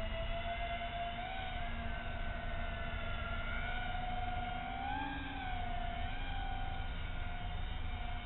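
Twin motors and propellers of a Hydrofoam RC flying boat whining at a steady pitch that wavers with the throttle, rising and falling about five seconds in. A low wind rumble on the microphone runs underneath.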